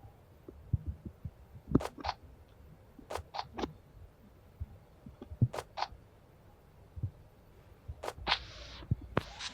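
Irregular soft thumps and sharp clicks, with a few brief rustling strokes scattered through, about a dozen small noises in all.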